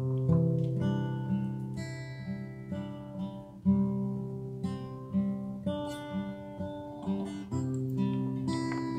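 Acoustic guitar playing an instrumental passage of a worship song, new chords sounding about once a second with no singing.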